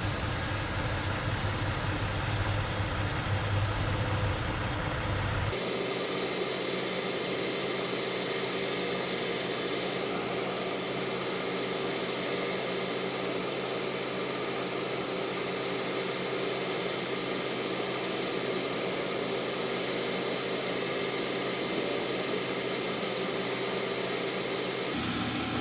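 A steady low engine hum for about the first five seconds. It then switches abruptly to a steady, even hiss-like noise with no low hum, which runs until just before the end, when the hum returns.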